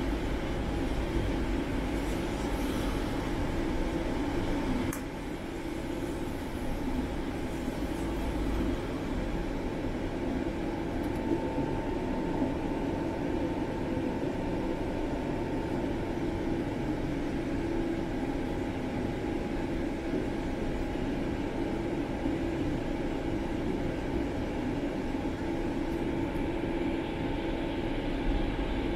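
Interior of a tram running along its line: a steady rumble of wheels on rails with a constant hum and a faint whine from the running gear. The deepest rumble eases about five seconds in and again near nine seconds.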